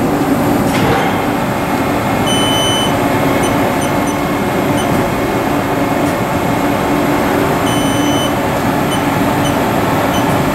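2011 Haas ST-10T CNC lathe indexing its tool turret from station to station: a steady machine hum, with a brief high tone about two seconds in and again about eight seconds in.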